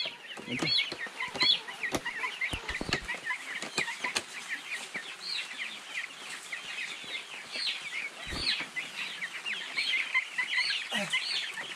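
A crate full of day-old chicks peeping continuously: many short, high chirps overlapping. Scattered clicks and knocks come from the plastic transport crate being handled and opened.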